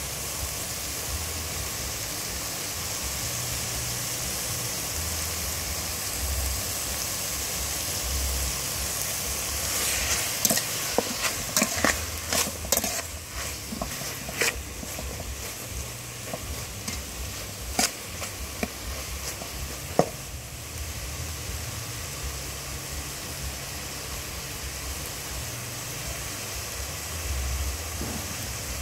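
Beef and lemongrass sizzling as they fry in an aluminium pot. From about ten seconds in, a metal ladle stirs them, scraping and knocking against the pot in a run of sharp clicks, the loudest near twenty seconds.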